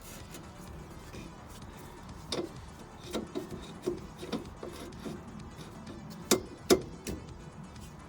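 Scattered knocks and clicks of suspension parts and tools being worked into place during a coilover install, with two sharper knocks close together near the end, over background music.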